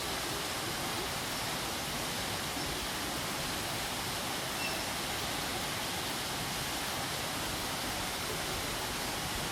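Waterfall: water falling steadily, an even, unbroken hiss with no changes.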